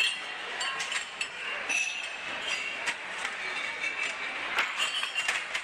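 Restaurant dining-room ambience: plates and cutlery clinking many times, irregularly, over a steady background murmur.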